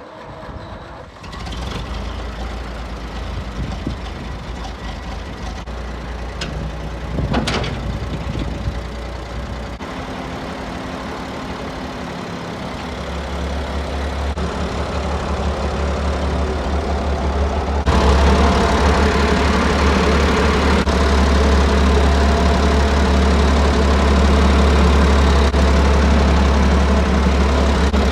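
David Brown 4600 tractor engine running steadily, coming in about a second in. It gets suddenly louder about two-thirds of the way through and stays there.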